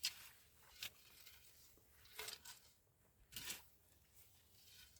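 Four short rustling, tearing sounds of vegetable leaves and stalks being handled during picking, the loudest about three and a half seconds in.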